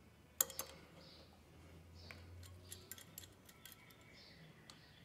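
Light metal clicks and clinks of tools and parts being handled on an engine's cam phaser and timing chain, with one sharp click about half a second in.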